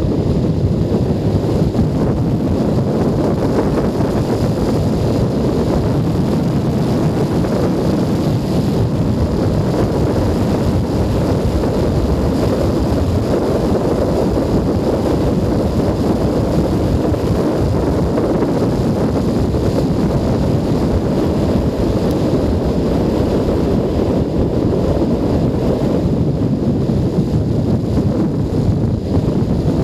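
Steady, loud wind rush on a helmet-mounted camera microphone while riding a Junak M12 Vintage 125 cc motorcycle, with the motorcycle's running blended into the noise.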